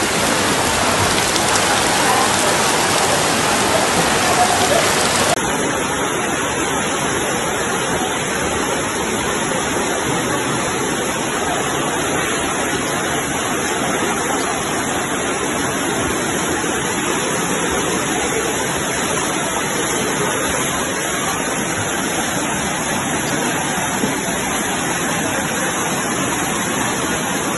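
Floodwater rushing down a street in heavy rain: a steady, loud wash of flowing water and rain. The sound changes abruptly about five seconds in, then runs on evenly.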